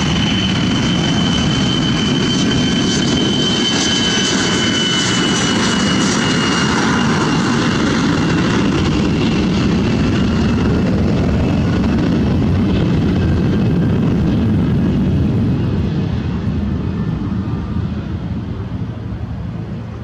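Cessna Citation X business jet taking off, its two Rolls-Royce AE3007 turbofans at takeoff power: a loud, steady roar with a high whine that drops slightly in pitch as the jet passes. The roar fades over the last few seconds as the jet climbs away.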